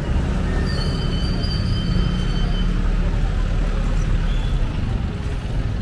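Busy street traffic: motor tricycles, motorcycles and a truck running close by, a steady low engine rumble, with a thin high tone held for about two seconds near the start.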